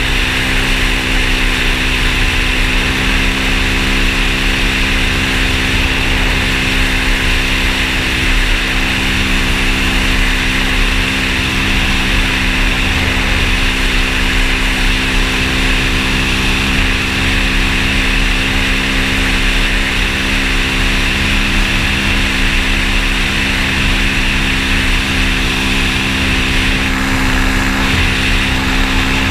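An engine running steadily at a constant pitch, with a strong low rumble and a steady hiss over it.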